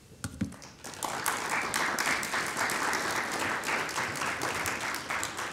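An audience applauding: a few scattered claps, then steady applause from about a second in.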